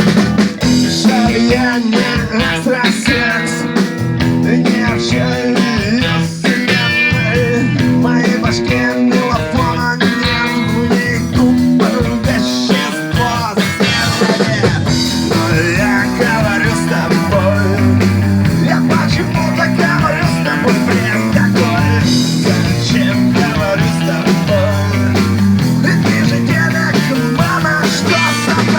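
A rock band playing, with electric guitar to the fore.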